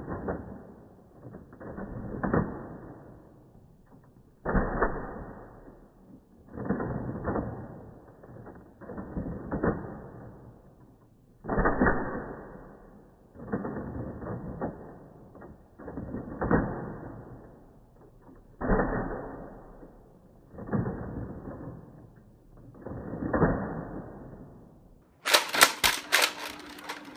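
Nerf N-Strike Recon CS-6 spring-plunger dart blaster being fired about ten times in slow motion, with the sound slowed down. Each shot is stretched into a low, muffled clatter, about two seconds apart. About 25 seconds in, the sound returns to normal speed with a quick run of sharp plastic clicks.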